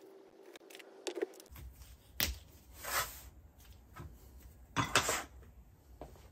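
Metal sand-casting flask being closed, the cope half set down onto the drag on a workbench: scattered knocks and clanks of metal on metal, the sharpest a little past two seconds in, another near three seconds and a pair close together near five seconds.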